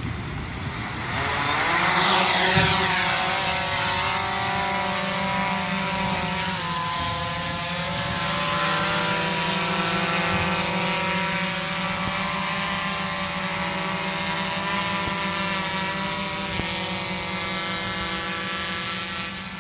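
Quadcopter's four brushless motors and propellers throttling up to lift off about one to two seconds in, then a steady multi-tone buzzing hum as it hovers and climbs, its pitch shifting a little with the throttle.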